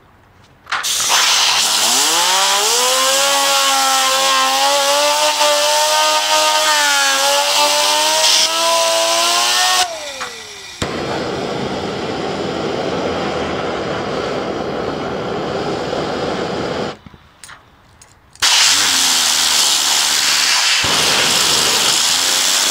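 Compressed-air blow gun hissing hard at a plastic fidget spinner, driving it up to speed: the spinner's whine climbs in pitch, holds, and slides down just before ten seconds in. A lower, rougher rushing noise follows for several seconds, there is a brief lull, and the loud air hiss starts again near the end.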